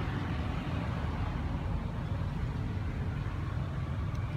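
Steady low rumble of outdoor background noise, unchanging throughout.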